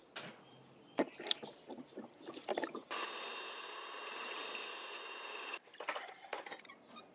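A metal spoon clicking against a glass jar as matcha powder is scooped. About three seconds in, a handheld electric frother whirs steadily in the matcha for about two and a half seconds and cuts off suddenly. A few light spoon clinks against glass follow.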